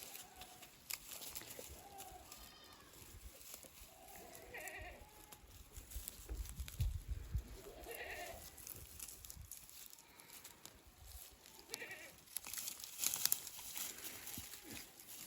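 Goats bleating, about five short calls spaced a few seconds apart, with a dull thud about halfway through and a few sharp clicks or rustles near the end.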